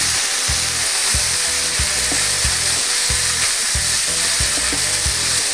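Ribeye steak sizzling in butter and oil in a cast-iron skillet over medium-high heat: a steady, loud frying hiss that cuts off suddenly at the end.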